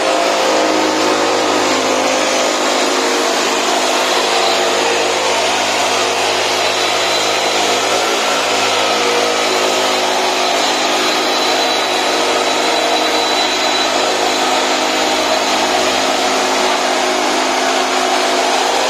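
Makita backpack mist blower's engine running at steady high speed, with the blower's air noise over the engine tone.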